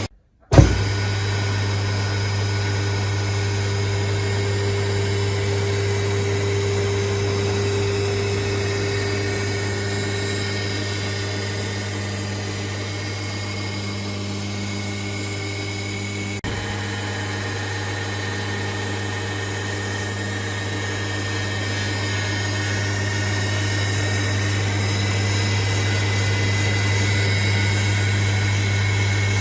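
Restored three-phase electric water pump running steadily with a constant low hum. About half a second in, a brief gap ends in one sharp click.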